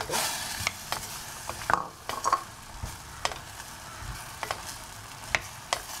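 Diced carrots tumble into hot oil in an open pressure cooker, with a burst of sizzling at the start. A wooden spatula then stirs the vegetables, scraping and tapping against the pan now and then over a steady sizzle.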